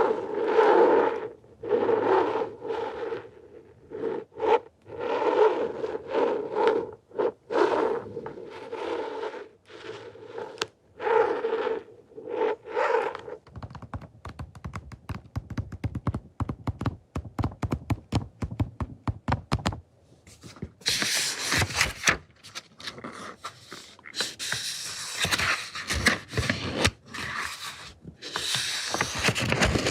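Close-miked ASMR trigger sounds with no talking. Repeated bursts of scraping come first, then a run of fast, sharp tapping, then denser, hissing scratching to the end.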